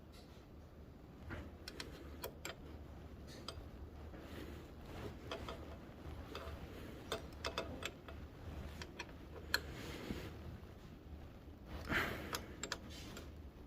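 Scattered light metallic clicks and taps at an irregular pace, with a sharper click about two thirds of the way through and a short cluster near the end: hand tools and small metal parts being handled while a motorcycle footpeg is being fitted.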